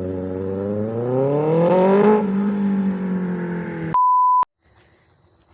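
A vehicle engine accelerating, its pitch rising for about two seconds and then holding steady as it runs on. About four seconds in it is cut off by a short, steady electronic beep, after which the sound drops to near silence.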